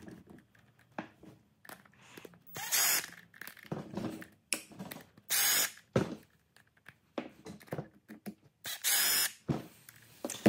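Milwaukee cordless driver running in three short bursts, backing screws out of a motorcycle ABS pump's aluminium housing, with small clicks of handling between the bursts.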